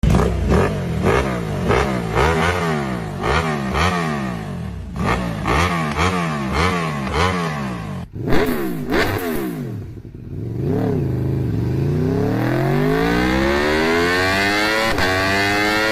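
Engine revved in quick repeated throttle blips, the pitch jumping up and falling back about twice a second; after an abrupt change about eight seconds in, an engine is revved in a couple of blips and then climbs steadily in revs over several seconds.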